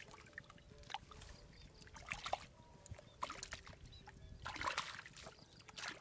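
Hands squelching and sloshing through wet paddy-field mud while groping for fish, in faint, irregular bursts.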